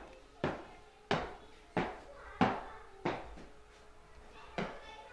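A child's marching footsteps stamping on a stage floor, one heavy step about every two-thirds of a second, each echoing briefly.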